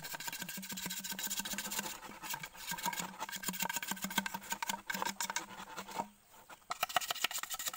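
Large knife blade scraping and chipping at the end of a green bamboo tube in a fast run of short strokes, pausing briefly about six seconds in before a few more strokes.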